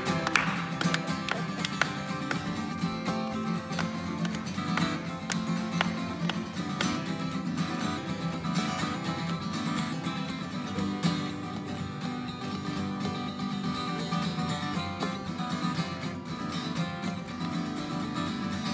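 Solo acoustic guitar playing an instrumental break: picked and strummed chords in a steady, busy rhythm.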